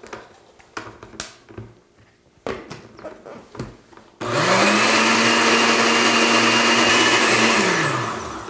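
A few light knocks as the blender jar and lid are handled. About four seconds in the countertop blender is switched on: its motor spins up to a steady high pitch and runs for about three seconds, then winds down near the end. It is blending a thick paste of ginger, garlic, miso, red curry paste and lime juice.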